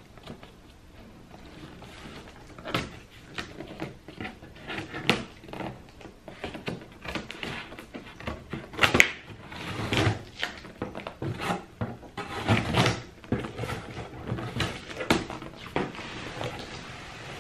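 A cardboard shipping box being opened by hand with scissors: irregular snips, scrapes and rustles of tape, cardboard and packing, loudest about nine seconds in.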